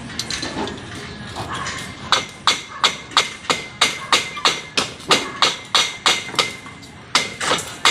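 Rapid, even metal-on-metal tapping on steel reinforcing bars, about four sharp strikes a second, starting about two seconds in and pausing briefly near the end.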